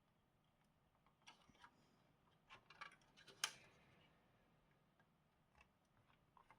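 Faint scattered clicks and taps of a small plastic retaining clip being worked loose inside a flat-screen TV, with one sharper click about three and a half seconds in.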